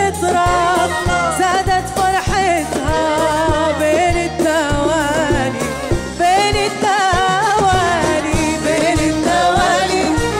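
Live Jordanian folk song: a woman singing with vibrato over a band with violin and bass guitar, on a steady beat.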